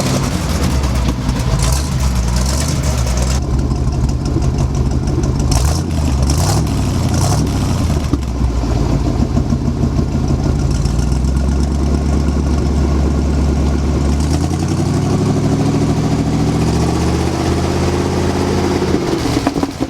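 V8 dump truck engine running through freshly fitted glasspack mufflers, a steady low exhaust note that, in the last third, climbs steadily in pitch as the engine revs up, then drops just before the end.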